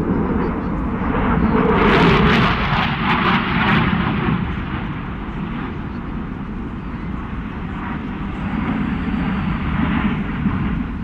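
Eurofighter Typhoon's twin Eurojet EJ200 turbofans: jet noise from a fighter flying a display, loudest about two to four seconds in, then steady.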